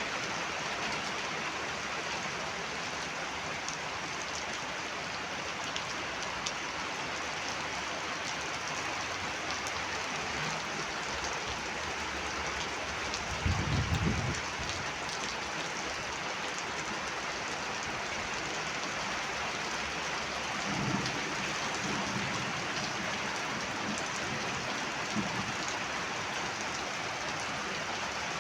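Heavy rain falling steadily, with a brief low rumble about halfway through and a few fainter low swells later.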